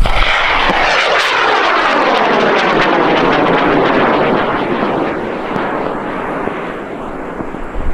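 A high-power rocket motor burning as the rocket climbs away: a loud rushing noise that comes in suddenly, its tone sweeping down and then back up, fading somewhat after about five seconds.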